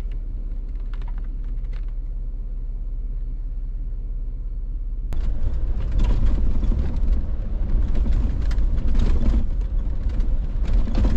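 Jeep Wrangler driving on a wet road in the rain: a steady low engine and road rumble. About five seconds in the sound switches to inside the cabin and gets louder, a broad hiss of wet tyres and rain with scattered taps over the rumble.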